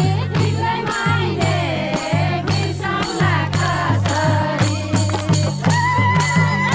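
Music with a steady beat and a repeating bass line, melody lines above it; a held high note comes in near the end.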